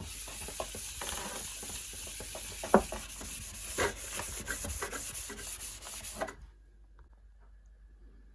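Clearing out and cleaning a fridge: rubbing and rustling with scattered knocks of containers being moved. About six seconds in it turns much quieter, leaving a few faint clicks.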